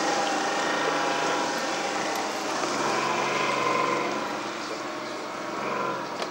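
Tracked armoured vehicle driving on a dirt track: its engine running steadily along with the noise of its tracks, getting a little quieter after about four seconds as it moves away.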